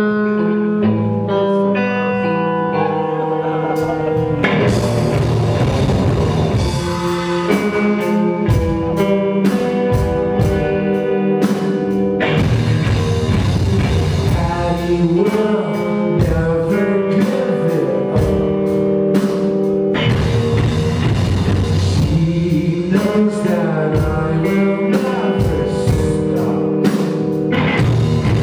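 Live rock band playing loud electric guitars over a drum kit, sustained guitar chords ringing throughout and the drums coming in about four seconds in.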